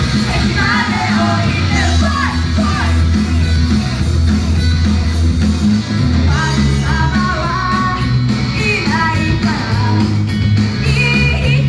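Idol group singing a rock song live over a loud band backing with heavy bass and guitar; the voices drop out for a few seconds in the middle, then come back.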